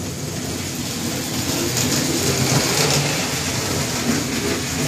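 Marx electric toy train engine and tender running around tinplate track: a steady whir and rattle of the motor and wheels on the metal rails, a little louder in the middle.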